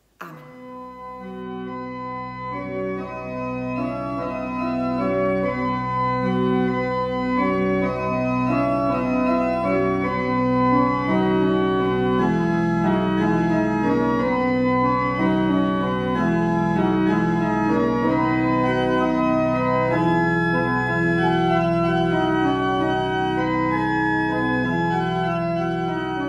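Church organ playing the closing voluntary after the blessing: full sustained chords moving over a held low pedal note, swelling in loudness over the first few seconds and then staying full.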